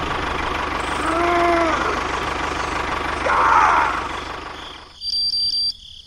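Tractor engine running steadily, fading out near the end, with two short pitched calls over it about a second in and halfway through. A brief high ringing tone follows just before the end.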